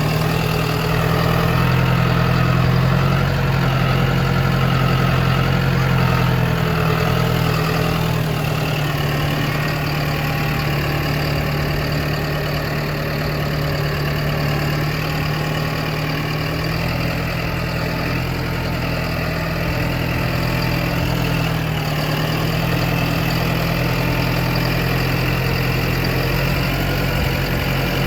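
Farm tractor engine running steadily, a constant low drone that stays even throughout.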